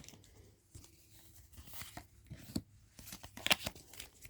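Foil wrapper of a Pokémon booster pack being torn open and crinkled, with a scatter of sharp crackles, the loudest about three and a half seconds in.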